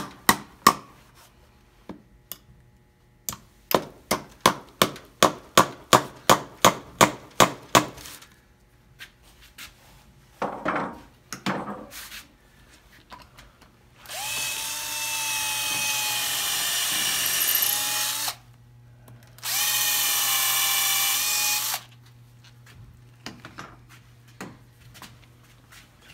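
A claw hammer drives nails into a glued-up wooden block. There are a few blows at the start, then a quick even run of blows a few seconds in. Later a cordless drill runs twice, a few seconds at a time, boring pilot holes for the nails into the wood.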